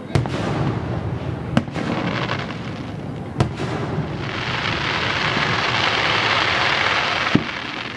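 Fireworks going off: four sharp bangs a couple of seconds apart, with a loud steady hiss that swells from about halfway through and stops at the last bang near the end.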